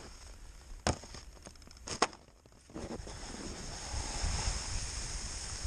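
Skis on snow: two sharp knocks about a second apart, then from about halfway in the steady hiss of skis sliding and carving over snow as the skier picks up speed downhill.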